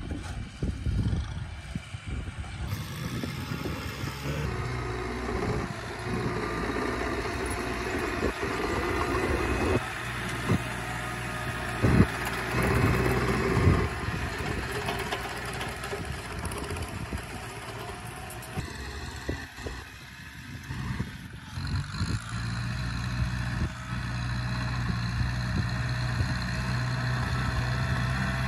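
Kubota tractor's diesel engine running steadily under load as it pulls a disc plough through the soil, with a few sharp knocks around the middle.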